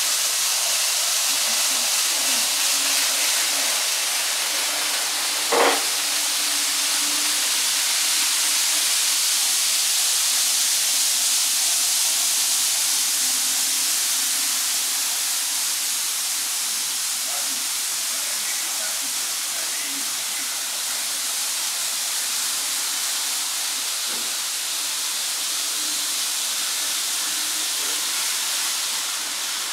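Steady hiss of room noise around an N gauge model railway layout, with a faint wavering hum from running model trains and one sharp click about five and a half seconds in.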